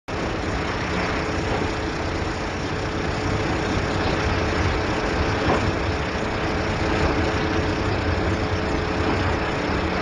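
An engine running steadily with a constant whine, under a dense rush of wind and water.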